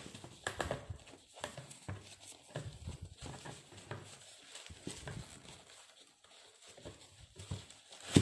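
Running shoes being handled in a cardboard shoebox: irregular soft knocks and bumps of the shoes against the box, with rustling of the tissue paper lining, and one sharp knock near the end.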